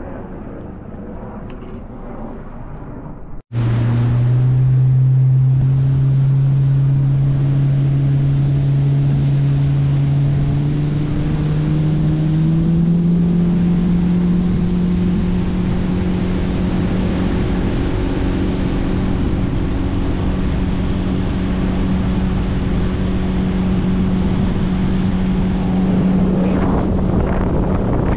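Boat motor running under way, cutting in suddenly a few seconds in; its pitch rises around ten seconds later as the boat speeds up, then holds steady. Wind buffets the microphone, and water rushes along the hull.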